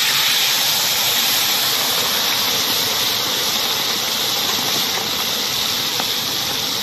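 Pieces of fish rubbed with salt and turmeric deep-frying in a large iron kadai of hot oil: a steady, loud sizzle.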